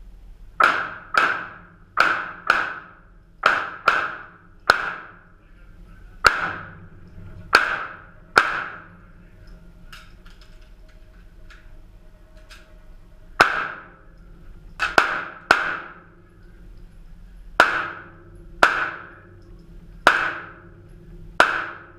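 Handgun shots fired through an action pistol course: about eighteen sharp cracks, mostly in quick pairs and short strings with pauses of a few seconds between, each echoing briefly in the indoor range hall.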